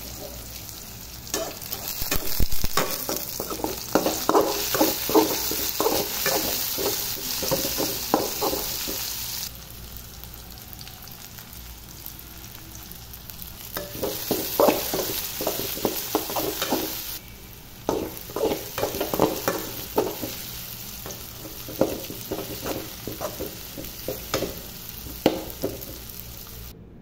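Onions, tomatoes and garlic sizzling in hot oil in a metal pan, stirred with a metal spatula that scrapes the pan in quick repeated strokes. The stirring stops for a few seconds near the middle, then resumes.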